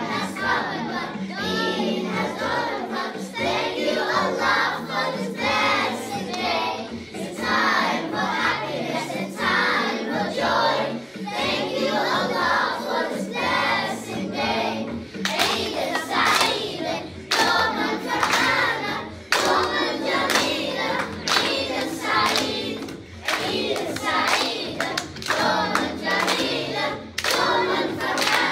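A group of children singing together over backing music, with hand-clapping in time joining about halfway through.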